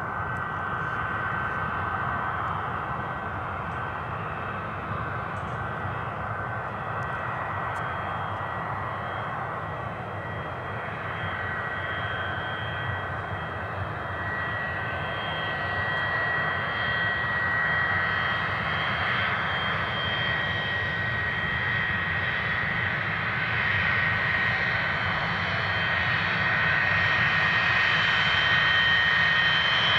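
Boeing 737-200's Pratt & Whitney JT8D turbofan engines running at taxi power: a steady rumble with a high whine, growing gradually louder as the jet taxis along the runway toward and past the listener.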